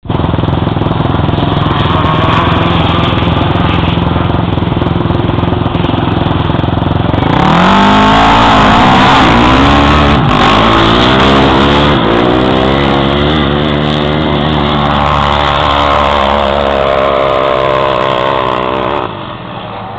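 Racing quad (ATV) engines running loud. From about seven seconds in, one engine stands out, its pitch rising and falling as it revs, and it drops away about a second before the end.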